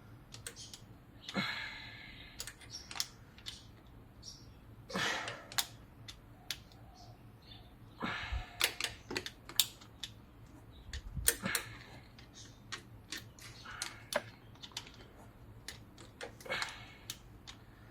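Ratchet wrench clicking in short runs of strokes, with scattered single clicks and knocks, while slowly backing out a long thermostat-housing bolt on the engine block.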